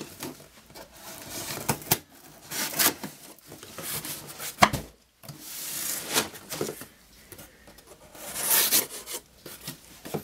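Cardboard shipping box being handled and cut open with a kitchen knife: irregular rubbing, scraping and knocks of cardboard, with a longer rasping stretch near the end.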